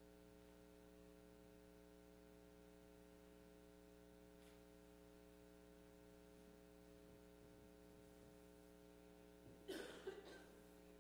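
Near silence: room tone with a low, steady hum, and a short burst of noise about ten seconds in.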